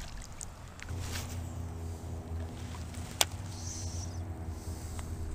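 A distant engine running steadily, a low drone that sets in about a second in and holds an even pitch. A single sharp click sounds about three seconds in.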